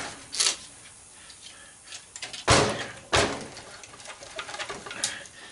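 Handling noise from working the small metal-caged circuit board on a CRT monitor's neck: scattered clicks and knocks of metal and plastic, the loudest a sharp knock about two and a half seconds in, followed by a second one shortly after.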